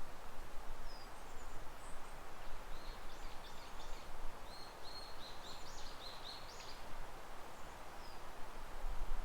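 A small bird singing: a quick run of short, high chirps in the middle, with a few single high notes before and after, over steady outdoor background noise.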